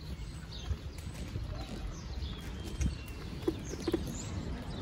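A pushchair rolling over paving: a steady low rumble with a few sharp knocks about three and a half to four seconds in, and faint bird chirps.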